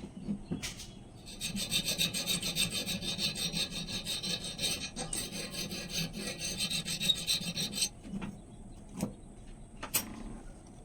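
Steel knife blade being worked by hand with an abrasive, making rapid back-and-forth scraping strokes that start about a second in and stop about two seconds before the end. A few light clicks follow.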